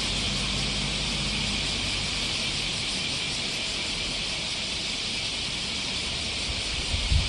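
Steady, high-pitched drone of an insect chorus, with a faint low rumble during the first second and a half.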